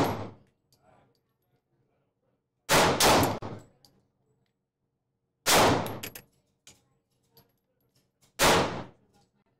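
Four gunshots at an indoor shooting range: two in quick succession about three seconds in, then single shots about five and a half and eight and a half seconds in, each with a short echoing tail. Faint clinks sound between the shots.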